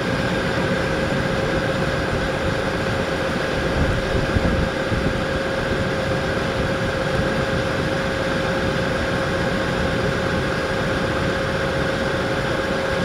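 Tour ship's engine running steadily under way, a constant drone with a steady whine, mixed with wind noise on the microphone.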